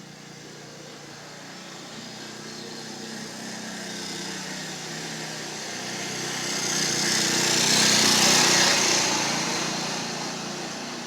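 A small motor or engine running, with a hiss and a low hum, growing louder to a peak about eight seconds in and then fading.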